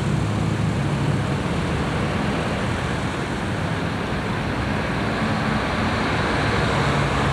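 Steady street traffic noise, a continuous low rumble of road vehicles, picked up by an analogue camcorder's built-in microphone.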